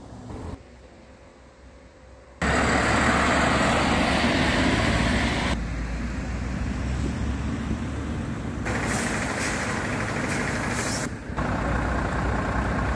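Heavy tipper trucks' diesel engines running, in several short takes that start and stop abruptly. The first couple of seconds are fairly quiet, then the engine noise comes in loud about two and a half seconds in.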